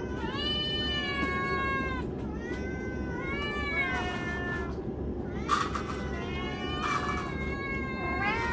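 Several domestic cats meowing repeatedly, their calls overlapping, as they wait to be fed breakfast. There is a steady low hum underneath.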